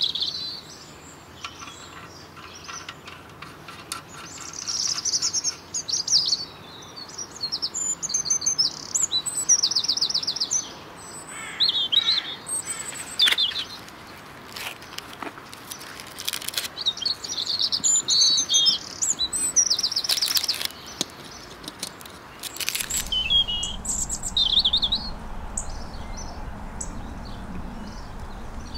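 Small songbirds chirping and singing in repeated short trills, with a few sharp clicks among them. A low rumble comes in near the end.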